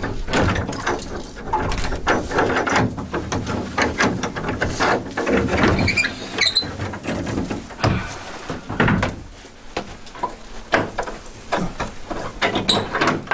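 A padlock being unlocked with a key and an old wooden door rattled and pulled open: metal clinks and rattles of the lock, with wooden knocks and creaks of the door, in many short irregular sounds.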